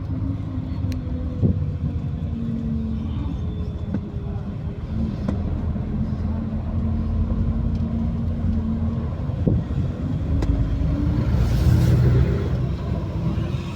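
Scania diesel engine of a double-decker bus running under way, a steady low rumble whose pitch drifts up and down a little with engine speed. A louder rush of noise comes near the end.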